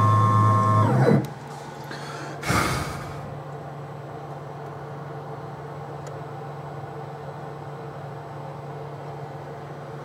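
Denford Novamill CNC milling machine's spindle running, then switched off about a second in, its whine falling in pitch as it spins down. A short rush of noise follows, then only a low steady hum from the machine.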